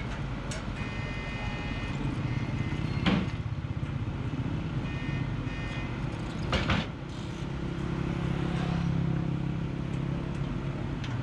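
Engine of a truck-mounted pile-boring rig running steadily while it drills a foundation hole. Two loud knocks come about three seconds in and again about six and a half seconds in, and a high whine sounds briefly twice.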